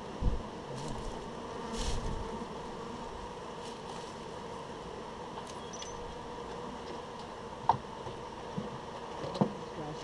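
Honeybees buzzing in a steady hum around an open hive, with a few short knocks of wooden hive equipment being handled.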